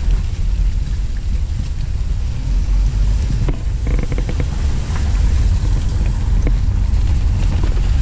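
Car driving slowly, heard from inside with a heavy low rumble of road and wind noise. A few light clicks come about halfway through.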